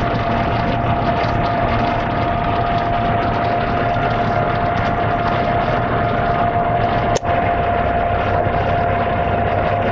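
1990 Jeep Cherokee engine bay: engine running with the electric cooling fan on, a steady noise with a constant whine over a low hum, while the A/C compressor clutch fails to engage. There is a brief sharp break in the sound about seven seconds in.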